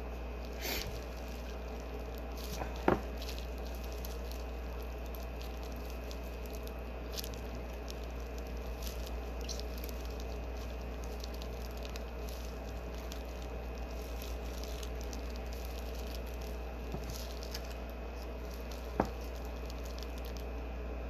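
Boiled shrimp being peeled with plastic-gloved hands: faint wet squishing and small crackles of shell, with two sharper clicks, about 3 seconds in and near the end. A steady low hum runs underneath.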